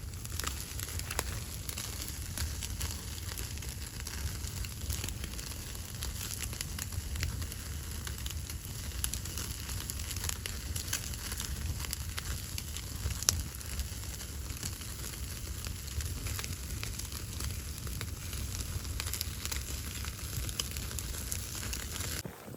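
Wood fire crackling with frequent small pops over a steady low rumble; one sharper pop about halfway through.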